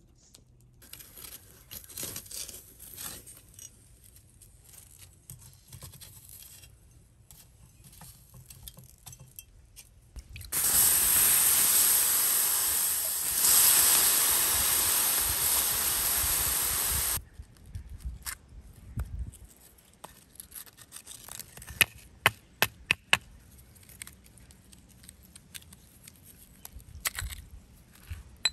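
A steady rushing hiss of water going over a freshly smelted iron bloom on a flat stone, lasting about seven seconds in the middle and stopping suddenly. Then hands scrape and rub the wet bloom, with a few sharp clicks of iron knocking on the stone.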